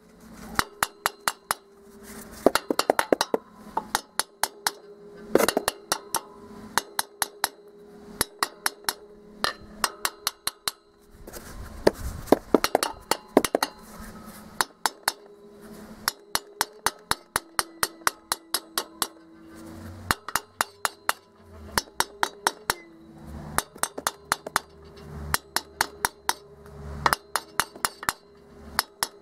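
A mallet knocks repeatedly on a VW Beetle air-cooled engine's cast-iron cylinder, in quick runs of sharp strikes with short pauses between them. The tapping is meant to break old rust and work the cylinder loose from the crankcase after heating.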